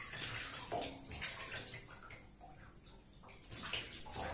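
Hands splashing water in a bathtub while washing a wet cat, in short irregular splashes.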